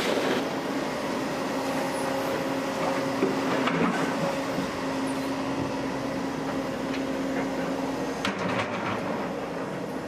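Tracked excavator working rocks into a riverbed: its diesel engine and hydraulics run with a steady hum that stops about eight seconds in, over a wash of noise with a few faint knocks.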